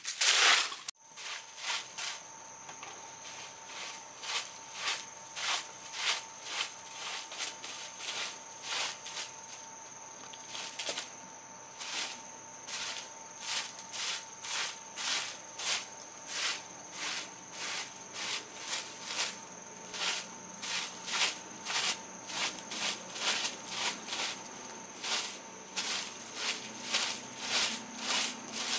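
Insects chirring steadily, with a regular run of short scraping strokes, about one and a half a second, from a second in.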